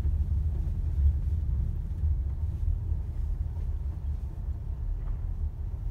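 Steady low rumble of a car's engine and tyres heard from inside the cabin, driving slowly along a leaf-covered dirt track.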